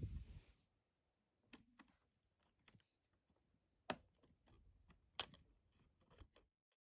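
Handling noise: a short rustle, then a series of small, sharp clicks and taps, the two loudest about four and five seconds in.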